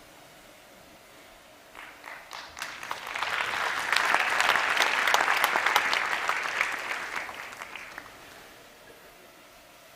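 Audience applauding: the clapping starts about two seconds in, swells to full applause, then dies away a couple of seconds before the end.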